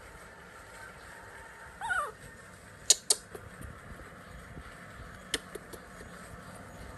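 A baby monkey gives one short squeal that falls in pitch, about two seconds in. About a second later come two sharp clicks close together, the loudest sounds here, and a single fainter click follows near the end.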